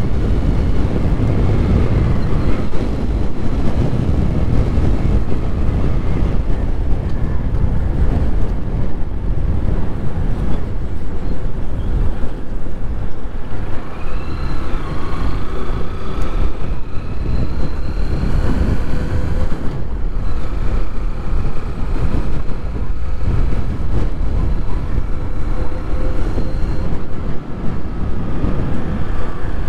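Heavy wind noise buffeting a helmet-mounted microphone during a motorcycle ride, with the Honda motorcycle's engine running beneath it.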